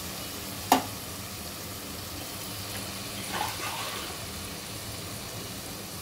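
Tomato and onion masala sizzling steadily in an aluminium pot. About a second in, a steel spoon gives one sharp clink against the pot.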